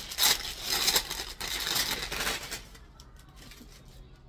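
Rustling and crinkling as a garment and its wrapping are handled, in a quick run of bursts that dies down to faint rustles after about two and a half seconds.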